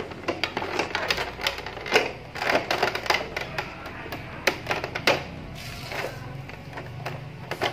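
Plastic tail body panel of a Suzuki Raider 150 clicking and knocking irregularly as hands press and rock it, the panel held firm now that it is locked in place. Background music runs underneath.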